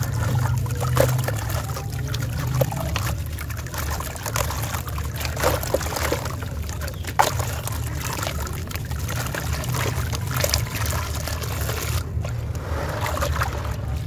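Sand-cement slab crumbled by hand into a tub of water: gritty chunks and sand falling and splashing into the water, with many small sharp cracks and crunches, over a steady low rumble.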